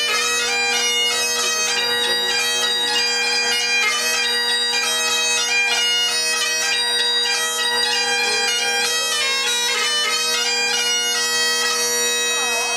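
Great Highland bagpipe playing a quick melody of short notes over its steady drones.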